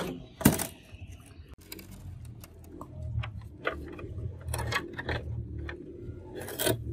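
Hard plastic clicks, snaps and knocks from a flat-screen TV's plastic bottom frame being worked loose by hand: one loud snap about half a second in, a run of small taps and clicks, and a louder clatter near the end.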